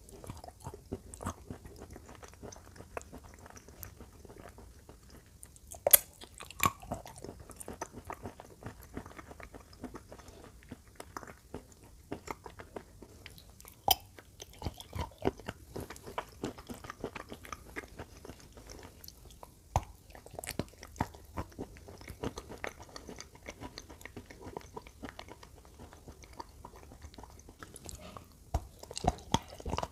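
A person biting and chewing hard chunks coated in a thick wet paste: a run of crunching bites and cracks with chewing between them, the sharpest crack about six seconds in.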